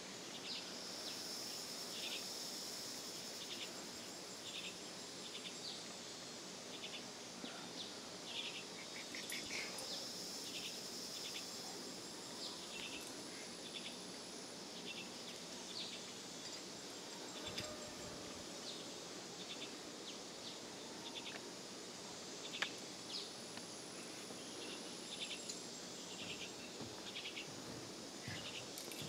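Insects droning steadily at a high pitch, with short chirps repeating every second or so. One sharp click about two-thirds of the way through.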